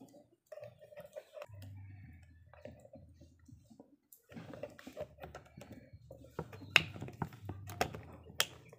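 Handling noise of a rubber balloon being stretched over the mouth of a plastic water bottle: irregular sharp clicks and crackles of rubber and thin plastic. They come thickest and loudest in the second half.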